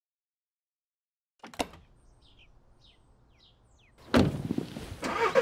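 A car door shuts with a sharp double knock about one and a half seconds in, while birds chirp faintly. About four seconds in a much louder sound starts, the car's engine being started.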